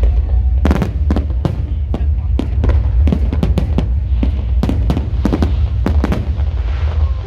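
Fireworks going off in irregular sharp bangs, roughly two to three a second, over a steady heavy low rumble.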